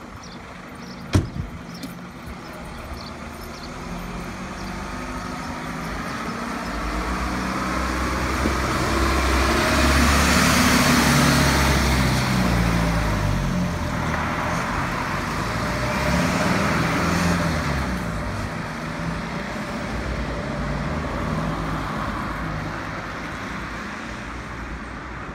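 Iveco fire engine's diesel engine pulling away and accelerating, its pitch rising and falling through gear changes. It is loudest as it passes about ten seconds in, swells again briefly, then fades as it drives off. A sharp knock sounds about a second in.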